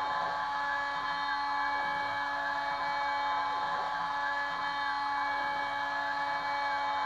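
Kress FME 800 router spindle on a Stepcraft 2/420 CNC running at a steady high whine while milling aluminium. Fainter stepper-motor tones sweep down and up in pitch about once a second as the axes move back and forth.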